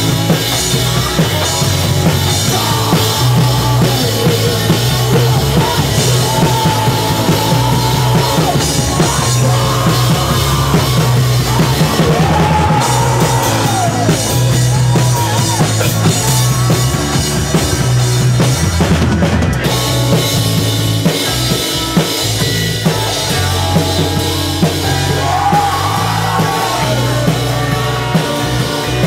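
Live rock band playing loudly: a driving drum kit, a bass line moving between notes, and a wavering lead line above.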